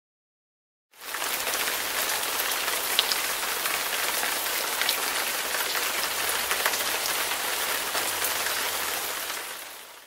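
iMovie's 'Hard Rain' sound effect: a steady, dense downpour of heavy rain. It starts suddenly about a second in and fades out near the end.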